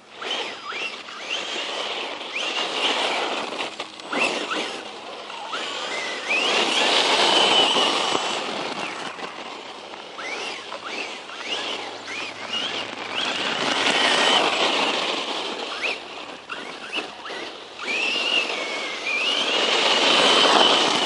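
Brushless electric motor of a 1/10 scale RC truck whining, its pitch rising and falling again and again as the truck speeds up and slows, over a steady hiss of tyre and drivetrain noise.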